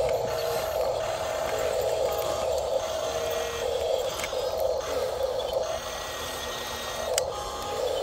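Small electric gear motors of a Huina RC excavator whining as the boom lifts a full bucket and swings. The whine shifts in pitch and stops and starts as each motion changes, with a single click about seven seconds in.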